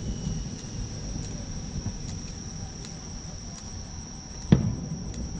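Crickets chirping in a steady high trill, with a single sharp firework boom about four and a half seconds in.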